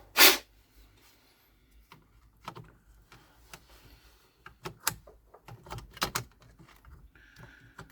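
Clicks and knocks of plastic and metal parts being handled as a laptop cooling fan is fitted back into the chassis, with one loud knock right at the start and scattered light taps after it.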